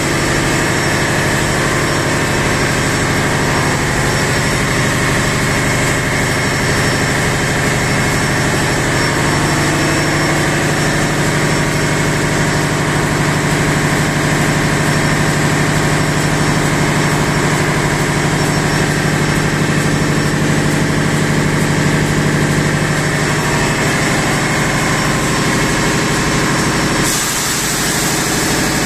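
Loud, steady engine-room machinery running, a continuous drone with a strong low hum and a constant high hiss, with no change in speed.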